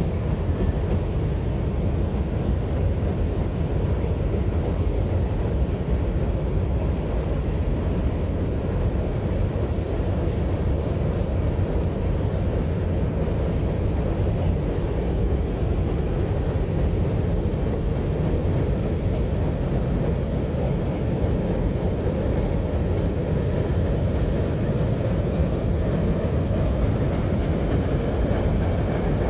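Freight train of boxcars rolling across a steel girder railroad bridge: a steady low rumble with no horn or single clanks standing out.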